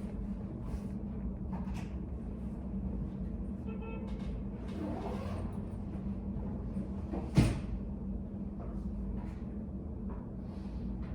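Study café room ambience: a steady low hum with scattered small clicks and rustles, and one sharp knock about seven seconds in.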